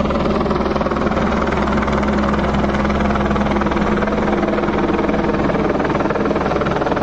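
Steady, loud engine drone holding one pitch, with no rise or fall.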